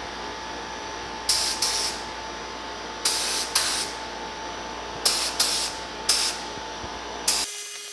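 Gravity-feed paint spray gun hissing in about eight short trigger pulls, squirting base coat into tight spots, over a steady background drone. The drone cuts out abruptly near the end.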